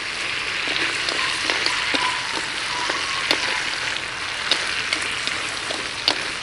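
Field crabs sizzling steadily in a hot wok as tamarind sauce is poured in, with scattered sharp clicks of chopsticks tapping the wok as they are stirred.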